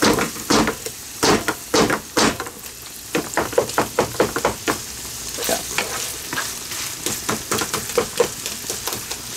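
Ground meat sizzling as it browns in a frying pan, with a wooden spatula scraping and knocking against the pan in quick, irregular strokes, several a second, as it chops and stirs the meat.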